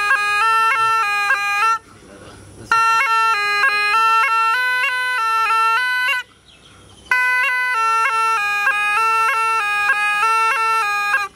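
Snake charmer's been, a gourd reed pipe, playing a bright, reedy melody of quick stepping notes. It plays in three phrases, broken by two short pauses about two and six seconds in.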